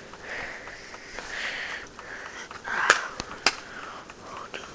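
Close, soft breathing at the microphone, in several swells, with two sharp clicks about half a second apart a little past the middle.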